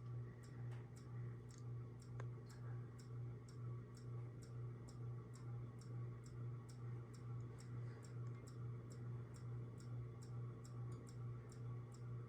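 Restore and Restyle airplane ceiling fan running on low speed: a faint steady motor hum that swells and fades about twice a second, with a light regular ticking about three times a second.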